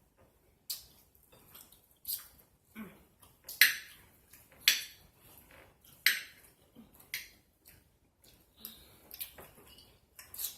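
Eating utensils clinking and scraping against dishes in a string of short, sharp, irregular knocks. The loudest come a few seconds in.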